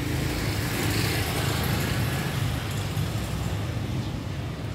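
Steady low hum of a vehicle engine running, with road noise that swells slightly about a second in.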